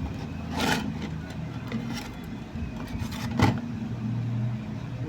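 Steady low electrical hum from an arc welding machine, broken by two sharp metallic knocks, one near the start and one about three and a half seconds in.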